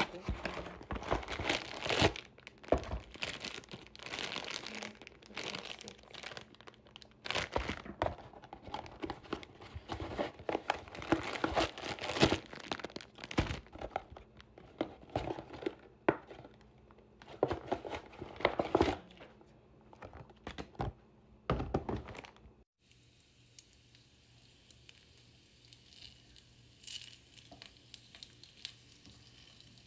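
A frozen dumpling box and its plastic bag being torn open and handled, in many irregular crackles and rustles. About three-quarters through this stops suddenly and gives way to a faint, steady sizzle of dumplings frying in a pan.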